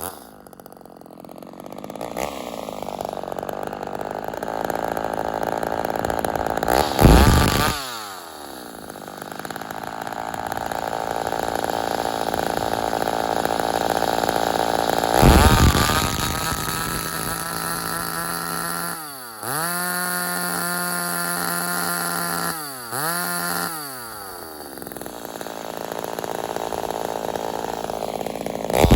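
Ported Homelite XL-76/XL-130 hybrid two-stroke chainsaw running under test after a metering lever adjustment to richen its fuel supply in cold weather. It is revved up and down repeatedly, with long held stretches at speed that are likely the chain cutting through wood, and a few quick throttle blips near the end.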